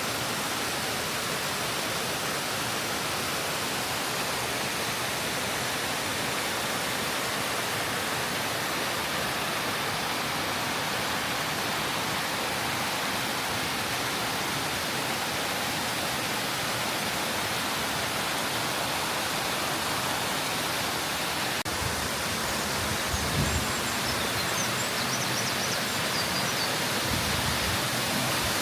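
Waterfall pouring down in a steady, unbroken rush of water. In the last few seconds low rumbles come in under it.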